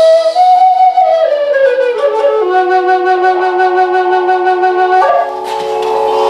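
F# quilted maple Native American flute playing a slow phrase: a note sliding down to a long held note with vibrato, which ends about five seconds in. A guitar backing track carries on underneath and after it.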